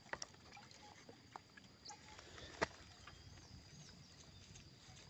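Freshly caught traíras being handled and flopping on gravel and plastic: a few sharp taps and knocks, the loudest about two and a half seconds in, over a faint steady high-pitched tone.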